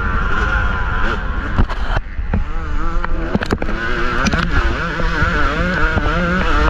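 2023 Yamaha YZ250 two-stroke dirt bike engine revving up and down with the throttle as it is ridden over rough trail, briefly dropping off about two seconds in before picking up again. Scattered sharp knocks run through it.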